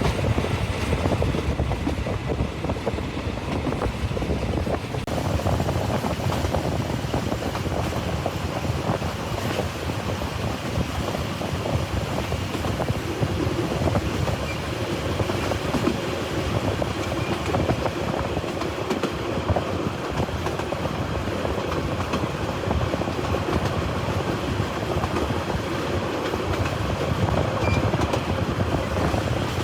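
Thai Railway train running along the track: a steady rumble with frequent small knocks throughout.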